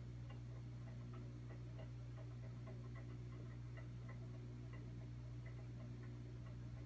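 Faint, quick ticking, about three small ticks a second, over a steady low electrical hum.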